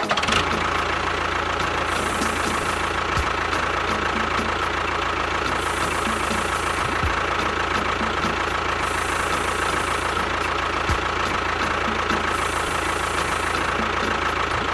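A motor running steadily at an even speed, with a low hum and a constant whine, starting abruptly.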